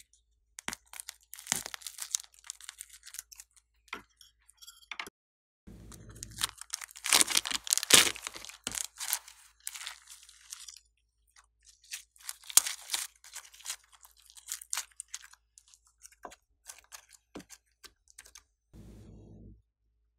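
Hands squeezing and stretching glossy white slime packed with small foam beads, giving irregular crackling and popping that is loudest about seven to eight seconds in.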